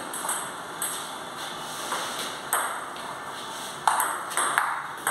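Table tennis ball clicking off the table and the players' rubber bats, about one click every half second, louder and quicker from about four seconds in as a rally gets going.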